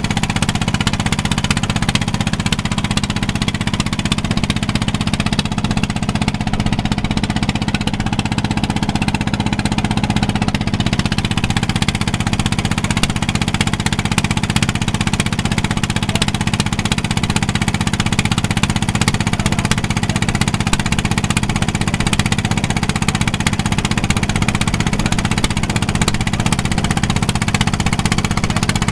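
The engine of a small wooden motorboat running steadily under way, a fast, even knocking chug with no change in speed.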